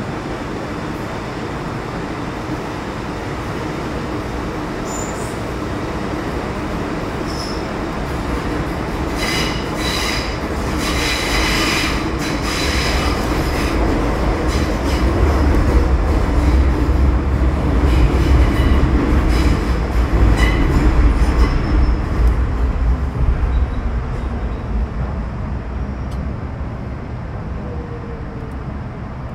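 Metro Cammell M-Train electric multiple unit with GEC GTO chopper control, heard from inside the car while running between stations. The steady rumble of wheels and traction gear grows louder through the middle, and there are a few seconds of high wheel squeal about ten seconds in.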